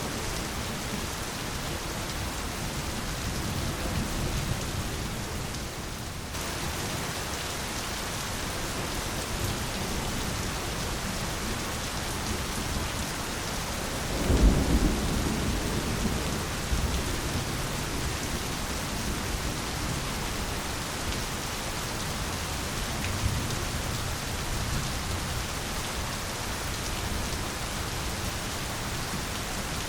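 Steady heavy rain with thunder rumbling low, and the loudest thunder roll about halfway through.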